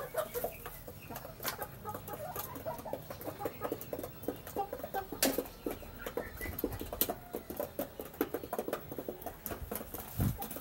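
A flock of half-grown chickens clucking and peeping softly while feeding, with many short, sharp clicks from their pecking.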